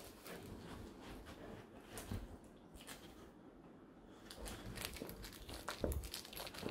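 A pitbull mix puppy chewing and mouthing a plush duck squeaker toy: soft crinkling and gnawing clicks from the fabric and stuffing, getting busier and louder in the second half.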